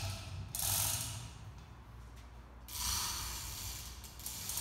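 Hand chain of a manual chain hoist being pulled, the chain running through the hoist in three pulls: a short one at the start, one of about a second, then a longer one of nearly two seconds.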